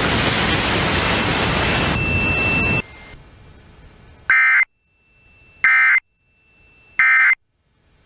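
A loud steady hiss that cuts off about three seconds in, then the Emergency Alert System end-of-message code over FM radio: three short, identical, raspy data bursts, a little over a second apart, marking the end of the alert.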